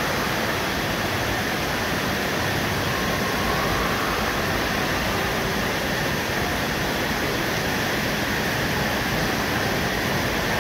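Steady rushing-water din of an indoor water park's lazy river, with faint distant voices now and then.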